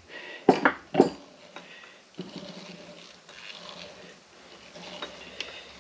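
A hammer tapping a metal part three times in quick succession, sharp knocks about half a second to a second in, nudging its high spot down to true its runout. After a second or so a faint steady hum with light ticks follows.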